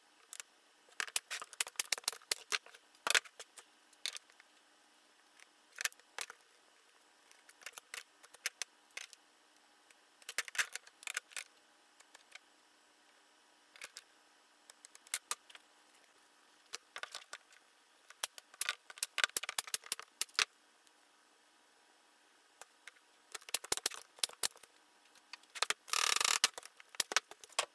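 Scattered clusters of light clicks, taps and knocks as wooden frame pieces and hand tools are handled on a workbench, with quiet gaps between them, and a denser rattling burst near the end.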